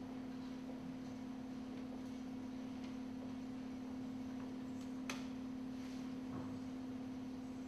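A steady low humming tone held at one pitch without change, with a faint sharp click about five seconds in.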